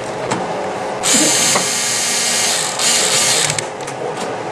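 Small electric screwdriver running in two bursts, about a second and a half and then under a second, driving the screws that hold the CF card tray into the computer's rear faceplate.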